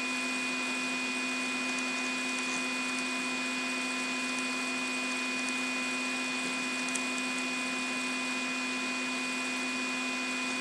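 Steady hum with an even hiss beneath it, unchanging throughout: background noise of the room or the recording equipment.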